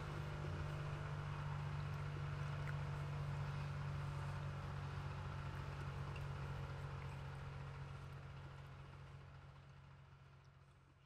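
A steady low hum with a few faint clicks over it, fading out over the last few seconds.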